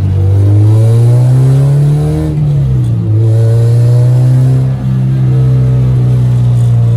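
Honda F20B four-cylinder engine heard from inside the cabin, the revs climbing for about two seconds, dropping briefly about two and a half seconds in, then holding steady at a constant pitch.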